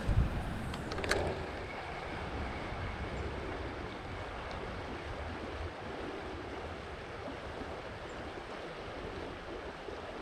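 Steady rush of river water and wind buffeting the microphone, with a sharp thump at the start and a couple of clicks about a second in; the low rumble eases a little about halfway through.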